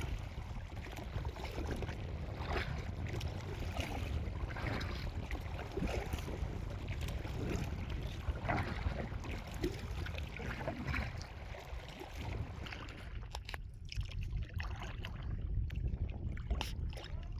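Kayak paddle strokes dipping and splashing in lake water about once a second, over a steady low wind rumble on the microphone; the strokes thin out near the end into a few sharper splashes and drips.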